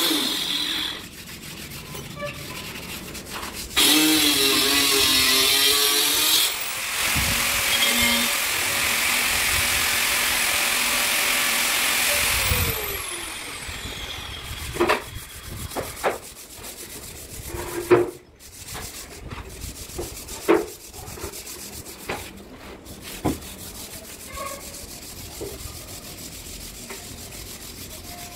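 Sandpaper rubbed by hand over a wood-sealed teak-veneer cupboard door, in steady scrubbing strokes with a few sharp knocks, the sanding done before polish. For about the first twelve seconds a louder motor runs over it, then winds down.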